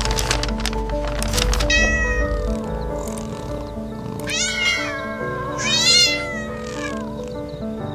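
A cat meowing three times in high, drawn-out calls that bend in pitch, over background music. Scratchy noises come in the first second and a half.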